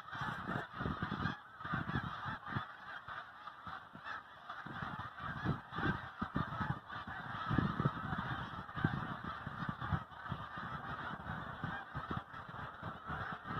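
A large flock of snow geese honking continuously, many calls overlapping into a dense chatter, with irregular low rumbles underneath.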